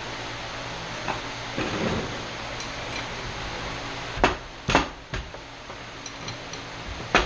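A few sharp metal clinks and knocks from tools and pressure washer pump parts being handled during disassembly, four of them in the second half, over a steady background hum.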